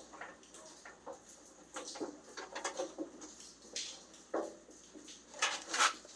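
Irregular scraping, clicking and knocking of the truck's grille and its fittings being worked loose by hand, loudest near the end.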